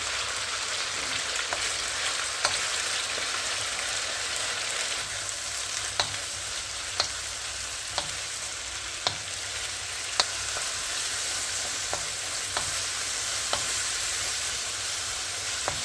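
Diced chicken frying in hot oil in a wide pan, a steady sizzle, while a wooden spoon stirs it and knocks lightly against the pan every second or so.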